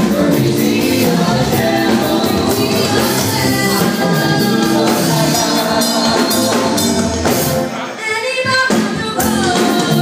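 Children's church choir singing together over accompaniment with a steady percussive beat; the bass briefly drops out near the end.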